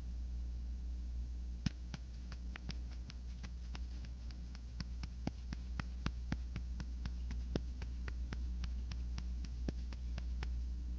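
A quick run of sharp, light clicks, roughly three to four a second, over a steady low hum. The clicks start just under two seconds in and stop near the end.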